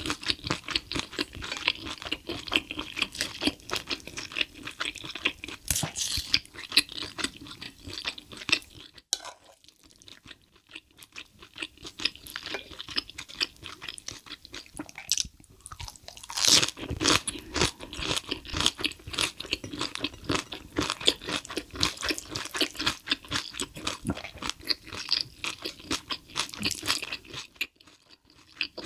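Close-miked chewing and crunching of spicy stir-fried cuttlefish and a steamed cabbage-leaf wrap: rapid wet crunches and mouth clicks. Brief pauses come between mouthfuls, with a louder burst of crunching a little after the halfway point.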